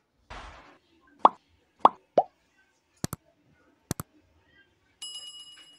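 Subscribe-button animation sound effects: a short whoosh, three quick pops that drop in pitch, two double clicks, then a ringing bell chime near the end.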